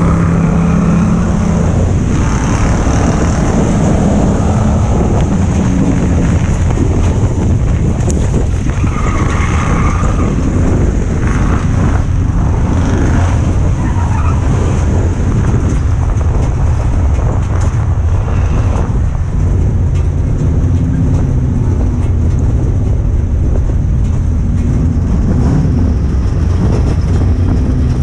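Ford Crown Victoria's V8 racing engine running hard, heard from inside the stripped race car's cabin as a loud, steady low drone mixed with tyre and dirt noise.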